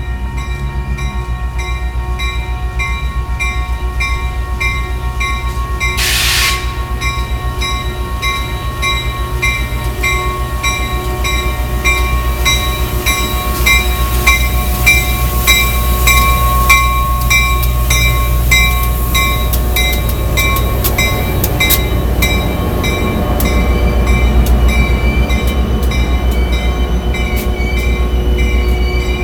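Rail grinding train at work: heavy engines rumbling steadily under the high whine and hiss of grinding stones on the rail, with even ticking about twice a second. There is a short hiss about six seconds in, and the sound grows louder toward the end.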